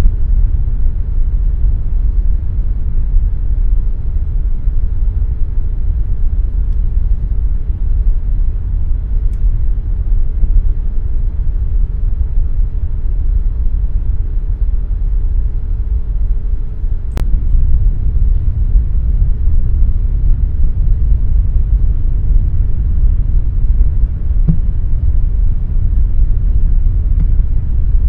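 Air conditioner running: a steady, deep noise. A faint hum in it stops with a sharp click a little past halfway.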